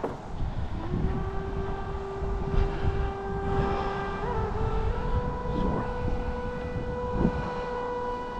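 Flute playing long held notes: a lower note for about three seconds, then a step up to a higher note held to the end. Underneath are a low rumble and a few knocks of footsteps on rocks.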